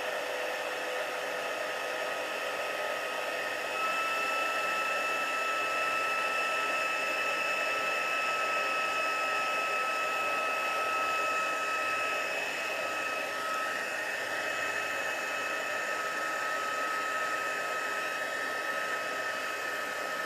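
Craft heat embossing gun blowing hot air steadily, melting gold embossing powder on a stamped cardstock tag. A high whine rides over the rush of air and grows a little louder about four seconds in.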